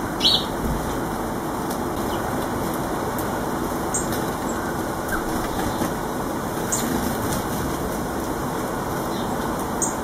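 A small garden bird's wings flutter briefly just after the start as it flies at the bird table. A few faint, short, high chirps follow later, over a steady background noise.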